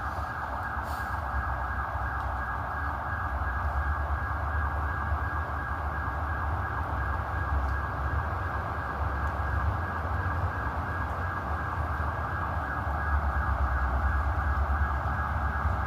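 A steady, unbroken drone coming from the sky, of unknown origin, over an uneven low rumble.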